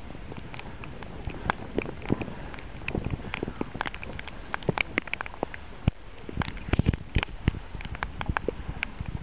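Rain and water drops striking the kayak deck and camera close to the microphone in irregular sharp ticks, several a second, over a steady hiss of wind and choppy water.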